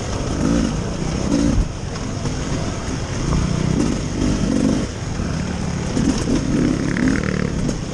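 2021 Beta 300RR Race Edition's 300 cc two-stroke single-cylinder engine being ridden hard on a dirt trail, its pitch repeatedly rising and falling as the throttle is opened and eased.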